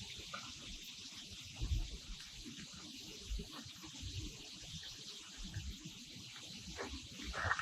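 Faint water sloshing and small knocks against a fishing boat, over a steady high drone of summer insects.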